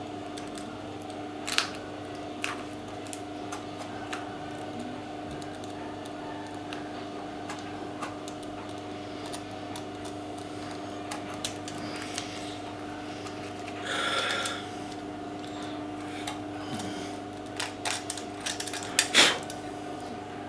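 Small clicks and taps of hand tools and material being handled, over a steady multi-tone hum. There is a brief scrape about fourteen seconds in and a sharper knock with a few clicks near the end.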